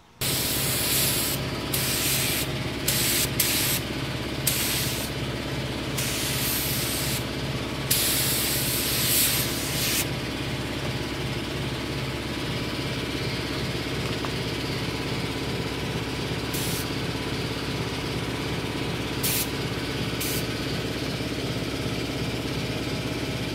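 Campbell Hausfeld 1.4 mm spray gun spraying clear coat in short hissing bursts as the trigger is pulled: several in quick succession in the first ten seconds, then three brief ones later. A steady machine hum runs underneath.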